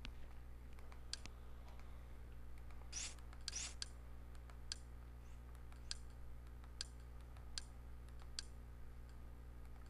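Button clicks from navigating the menus, about ten sharp clicks at uneven intervals, several close together around three to four seconds in, over a faint low hum.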